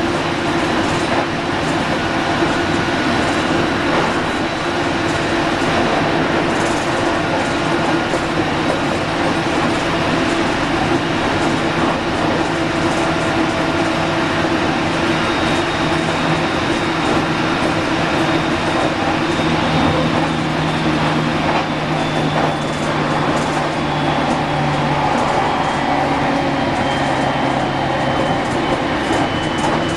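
JR Kyushu 815 series electric train running, heard from inside the car: a steady rolling rumble with faint clicks from the rails, and steady motor tones, one of which shifts in pitch past the middle.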